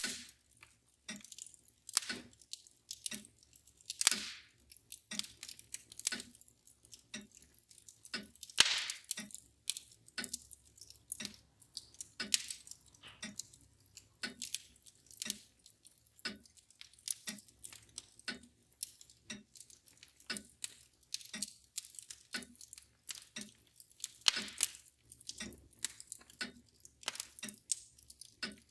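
Wood fire crackling with irregular sharp pops, the loudest about four and nine seconds in, over a mantle clock ticking steadily at about one tick a second.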